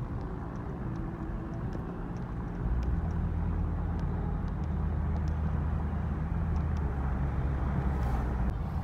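Car cabin noise while driving on a highway: a steady low rumble of engine and tyres on the road, which gets louder about a third of the way in and stays there.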